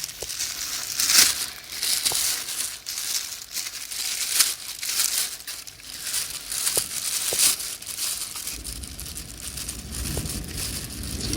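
Plastic bag crinkling and rustling in irregular bursts as it is handled around a car door lock and cable. A low rumble comes in near the end.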